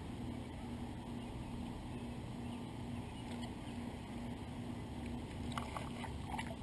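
Steady low outdoor rumble. From about five and a half seconds in, a run of sharp, irregular clicks from the fishing rod and spinning reel being handled.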